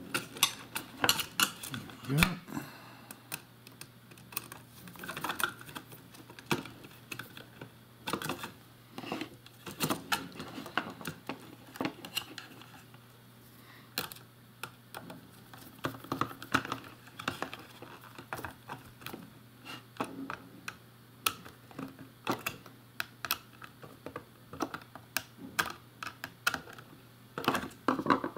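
A small screwdriver and hands working wires into the screw terminals of a DC motor speed-controller circuit board in a plastic enclosure: irregular light clicks, taps and scrapes, a few a second.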